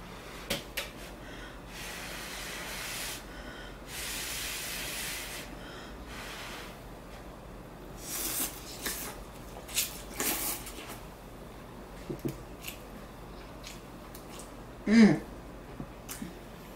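A person slurping instant ramen noodles from chopsticks: two long, hissing slurps in the first few seconds, then wet chewing and mouth smacks. A short voiced sound, like a hum, comes about fifteen seconds in and is the loudest thing heard.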